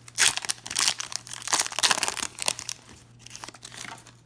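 Plastic trading-card pack wrapper crinkling as it is handled and torn open, loud for about two and a half seconds, then fainter.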